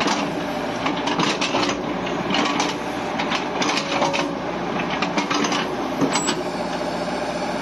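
Caterpillar 306E2 mini excavator working: the diesel engine runs steadily under hydraulic load, with frequent irregular clanks and rattles as the boom and bucket move.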